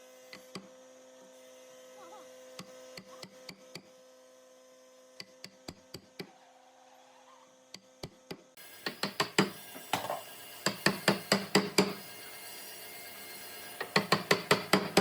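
A faint steady hum with a few light clicks, then from about halfway a run of sharp hammer knocks on wood, about four a second, which stops and picks up again near the end.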